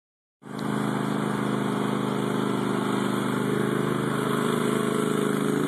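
Riding lawn tractor's small engine running steadily as it is driven along, a constant even hum.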